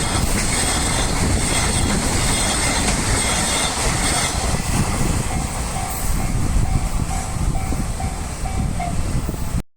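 A freight train rolling past on the rails, its wagons making a steady loud rumble with some clickety-clack. A level-crossing warning bell rings in a repeating pattern of about two tones a second, coming through more clearly from about halfway. The sound cuts off abruptly just before the end.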